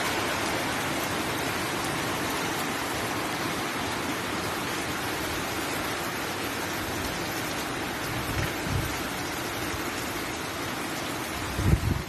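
Heavy typhoon rain pouring steadily onto flood water and the roof, an even hiss. Two brief low rumbles break in, one about eight seconds in and a louder one just before the end.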